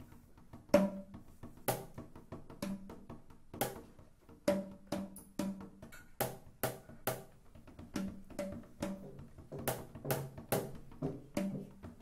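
Percussion music: a run of sharp drum and wood-block strikes, about one a second at first, then coming quicker in the second half.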